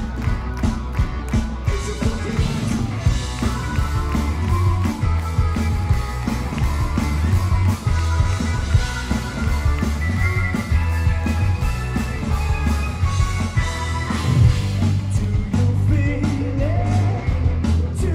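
Live rock and roll band playing loud through a stage PA: electric guitars and bass guitar over a steady beat, with singing.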